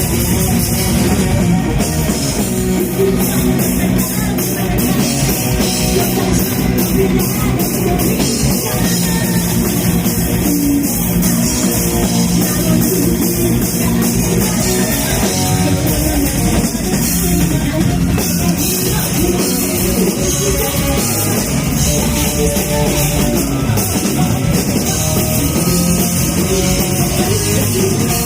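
Live metal band playing a song: drum kit and electric guitars, loud and continuous.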